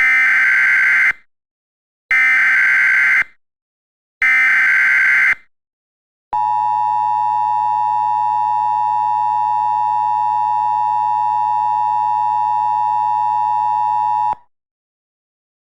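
Emergency Alert System SAME header: three harsh one-second bursts of digital data tones about a second apart. About six seconds in, a steady electronic attention tone follows for about eight seconds and cuts off suddenly, announcing a new emergency alert.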